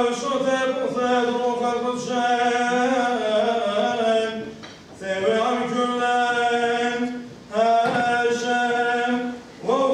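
Unaccompanied male liturgical chanting in Syriac. It comes in long sustained phrases with short breaks about halfway, past seven seconds and near the end.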